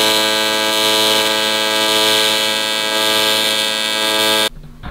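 AC TIG welding arc on aluminium, buzzing steadily with a strong, even hum, then cutting off suddenly near the end as the arc is broken.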